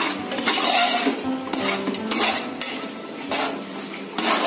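A spoon stirring tomatoes, onions and chilli powder as they fry in oil in a metal pot, scraping against the pot in repeated strokes.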